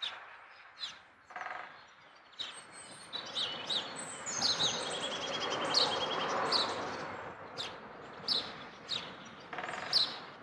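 Songbirds chirping and calling, with short high chirps and a quick trill about halfway through, over a steady outdoor rush that swells in the middle and then fades.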